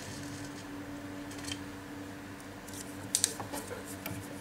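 Small metal tools and the workpiece handled on a jeweller's bench: a few light clicks, about a second and a half in and again around three seconds, over a faint steady low hum.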